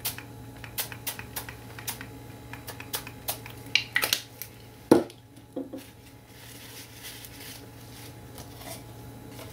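Small hand-pumped spray bottle spritzing colour onto a canvas, in quick short bursts over the first few seconds. Then a few knocks and taps of handling on the table, the loudest about five seconds in, with faint rustling after.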